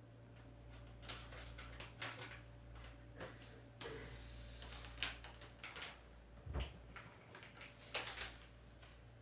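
Quiet handling noises in a small room: scattered clicks, knocks and rustling, with a dull low thump about six and a half seconds in.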